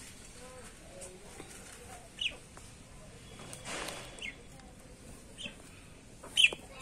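Chickens in a coop giving a few short, high, falling calls, the loudest near the end, with a brief rustle of dry hay about four seconds in.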